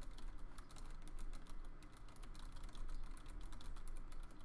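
Typing on a computer keyboard: a quick, irregular run of key clicks over a low steady hum.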